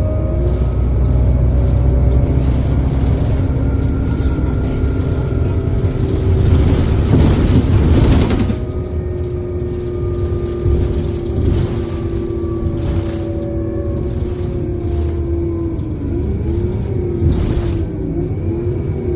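Heuliez GX 427 articulated bus idling, its ventilation fan whining steadily over the diesel rumble. A louder rushing noise swells about seven to eight seconds in.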